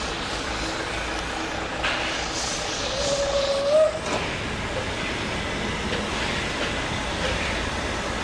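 Steam-hauled train of four-wheeled carriages rolling along the track with a steady rumble and hiss of steam. About three seconds in, a short squealing tone rises slightly in pitch and is the loudest sound, and the sound changes abruptly just before the four-second mark.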